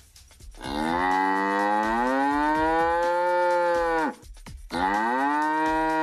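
A cow mooing twice: one long moo of about three and a half seconds, then a shorter second moo a moment later, each rising in pitch and dropping away at the end.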